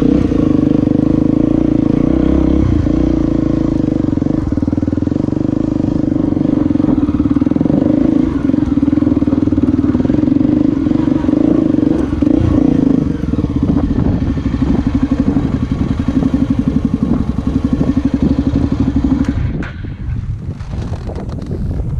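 Honda XR250 Tornado's single-cylinder four-stroke engine running at a steady pace under load. About two-thirds of the way in, it drops to a slower beat where the individual firing pulses can be heard. Near the end it falls quieter, with scattered clatter.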